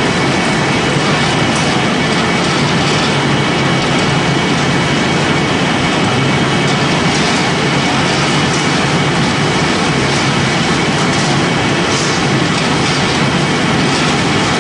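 Pellet making machine running under load, pressing corn stalk or sawdust material: a loud, steady, continuous mechanical noise with a faint high steady whine.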